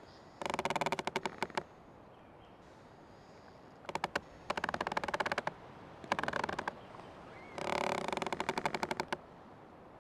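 Old tree creaking, four drawn-out creaks, each a rapid run of clicks lasting about a second, with short pauses between them.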